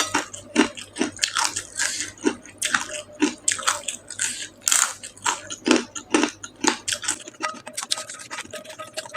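Close-up chewing and biting of food: irregular wet mouth sounds and small crunches, about two or three a second.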